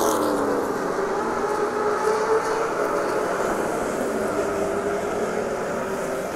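Race car engine running at speed in a steady drone, its pitch wavering slightly as the car laps the short track.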